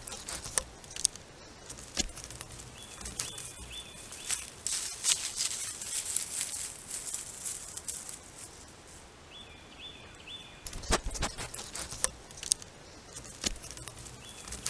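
Woodland at night heard through a trail camera's microphone: scattered clicks and crackles over a steady hiss, with a faint, high three-part pattern that comes back about every six seconds.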